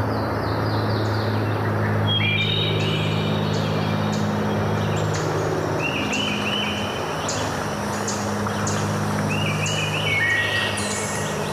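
Steady rush of flowing waterfall water, with birds chirping in quick repeated notes over it and a low steady hum beneath.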